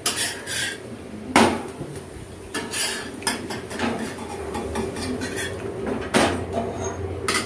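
Metal spatula scraping and knocking against a flat griddle pan as a besan chilla is loosened and lifted off, in a string of sharp clinks and scrapes.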